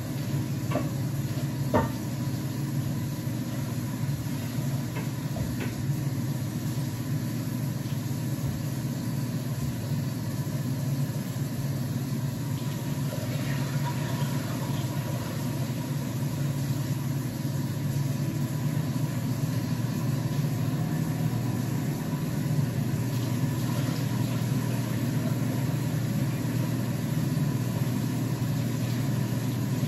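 Kitchen tap running steadily into the sink while lettuce is rinsed, an even rushing sound, with a few small knocks in the first couple of seconds.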